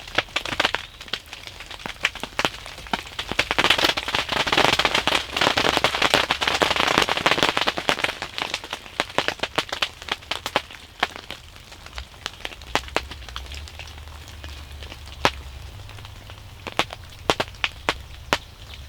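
Rain: large drops ticking irregularly on a surface close to the microphone, with a denser, louder spell of crackling patter a few seconds in.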